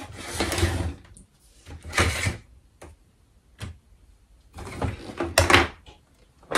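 Hard plastic parts of a Barbie dream closet playset being handled and shifted: several short bursts of plastic knocking and scraping with sharp clicks between quiet gaps, the longest burst about five seconds in.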